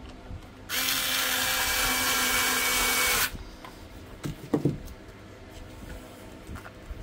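Truper drill-driver running at a steady pitch for about two and a half seconds, driving a screw into the steam iron's plastic housing during reassembly, then stopping abruptly. A few light knocks follow about a second later as the iron is handled.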